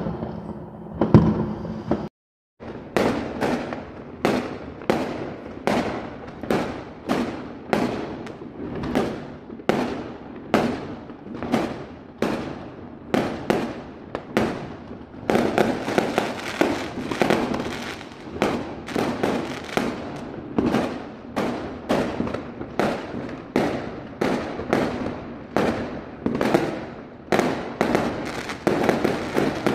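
Fireworks going off in a long, rapid string of sharp bangs, roughly two a second, after a brief gap of silence about two seconds in.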